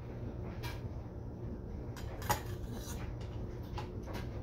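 Metal spoon clinking and scraping against a stainless steel mixing bowl and a frosting tub while frosting is scooped out: a few short clinks, the loudest a little past two seconds in, over a steady low hum.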